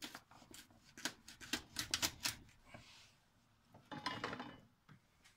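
Kitchen knife cutting through the tough ends of asparagus stalks on a wooden cutting board: a quick run of crisp clicks and knocks for the first two seconds or so, then another burst of clicking about four seconds in.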